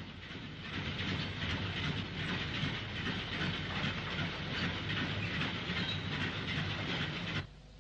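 LMS 'Crab' 2-6-0 steam locomotive moving a goods train: a steady running noise of locomotive and wagons on the rails, with some hiss. It fades in at the start and cuts off abruptly near the end.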